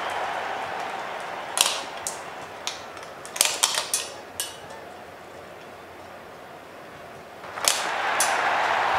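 Glass marbles clicking against one another and the plastic funnel and bricks: a string of sharp clicks between about one and a half and four and a half seconds in, then a single loud click near the end. Crowd noise fades out at the start and swells up again after the last click.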